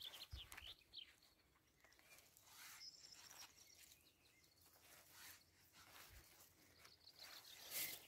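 Near silence, with faint, scattered rustles of grass as fairy ring mushrooms are picked by hand.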